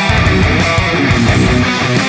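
Background music led by strummed electric guitar with a steady beat.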